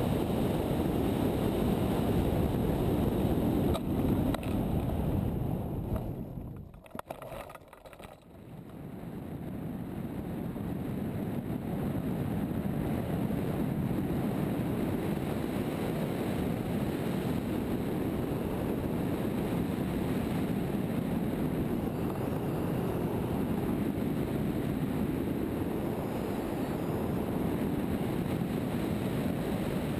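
Wind rushing over the microphone of a camera on a hang glider in flight, a steady low rush of airflow. It fades away briefly about six seconds in and builds back up over the next few seconds.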